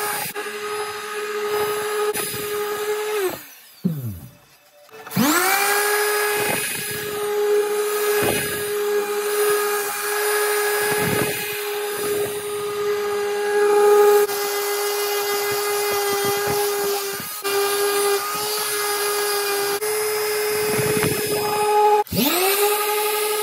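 Electric random orbital sander sanding a cured epoxy resin block, running with a steady hum. It winds down about three and a half seconds in and spins back up a second and a half later, then briefly stops and starts again near the end.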